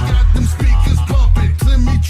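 Loud music with a heavy, regular bass beat and a vocal-like melodic line, in an electronic or hip hop style.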